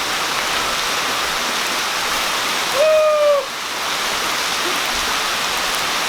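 Rain falling steadily, a continuous hiss, with one short whoop from a person's voice about three seconds in.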